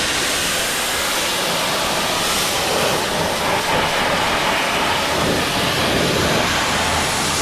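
Pressure washer spray hitting a car's alloy wheel and tyre: a steady hiss of water.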